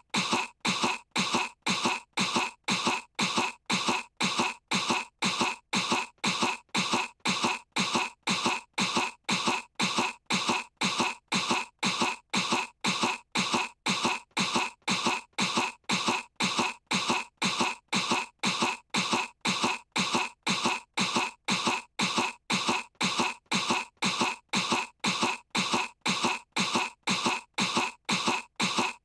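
A young girl's put-on cough, one short cough repeated identically about twice a second on a loop: coughing faked to pretend to be sick.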